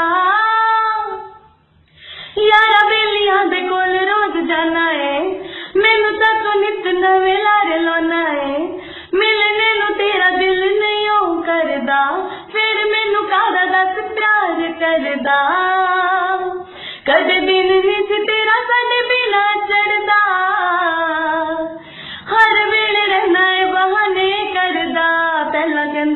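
A woman's voice singing a melodic song in long phrases, each starting afresh every three to five seconds, after a brief gap about two seconds in. Little or no instrumental backing is heard under the voice.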